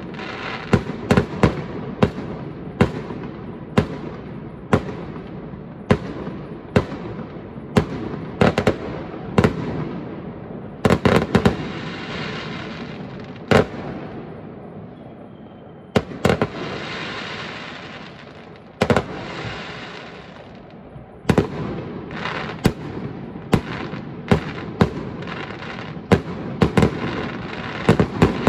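Fireworks display: aerial shells bursting in a rapid, irregular series of sharp bangs, with a crackling hiss filling the gaps between them. The bangs thin out around the middle, then come thick and fast again near the end.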